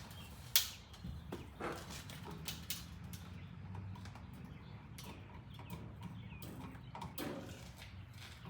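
Irregular light clicks and knocks from hand tools and outlet hardware being handled, the sharpest about half a second in, over a steady low hum.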